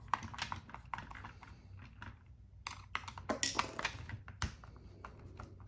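Hand disassembly of a Mint robot floor cleaner: irregular small clicks and taps of a screwdriver and loose parts being handled, with a brief scrape and a duller knock about four seconds in.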